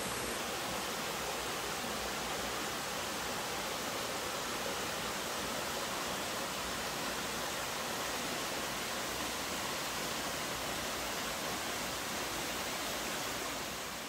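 Steady, even rush of water from a waterfall pouring into its basin.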